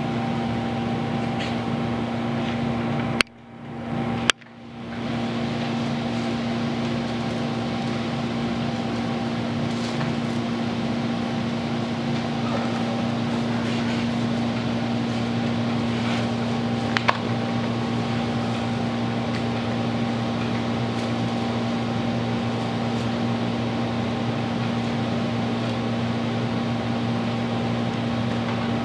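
Steady mechanical hum with a few low, even tones, like a running fan. It cuts out abruptly twice, a little over three and about four seconds in, each time with a click.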